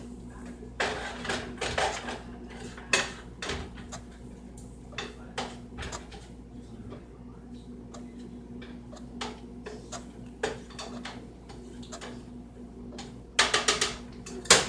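Cookware clatter at a stovetop skillet: scattered scrapes and knocks of a utensil against the pan, busier about a second in and again near the end, over a steady low hum.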